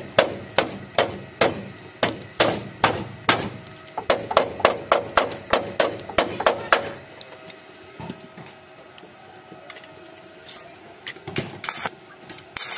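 Hand hammer striking a freshly welded steel repair plate on a rust-damaged car chassis, rapid even blows about three a second for roughly the first seven seconds, then a few scattered knocks. Near the end the loud crackle of stick (arc) welding starts.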